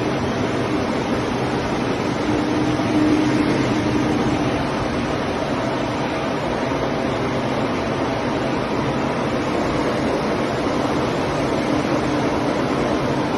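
Blue air-mover blowers running steadily during a bed bug heat treatment: an even rush of fan air with a low steady hum, a little louder about three seconds in.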